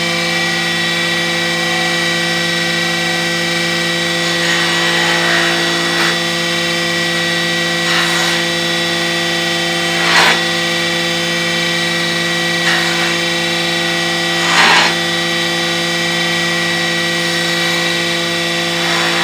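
Table saw motor running steadily, with several short louder bursts as the blade cuts into a wooden board fed along the fence.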